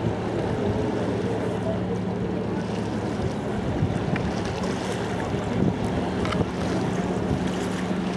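Wind buffeting the microphone over a steady low engine hum from boats on the river.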